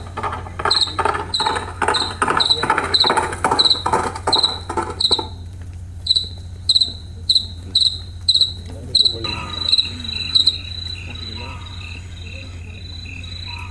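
Cricket chirping steadily, about two to three high chirps a second. After about nine seconds the chirps run together into a continuous trill, joined by a second, lower pulsing insect call.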